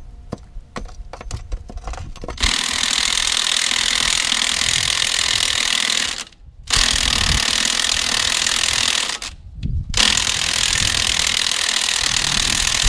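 A pneumatic air tool runs in three long bursts of several seconds each, with short pauses between, after a few light clicks.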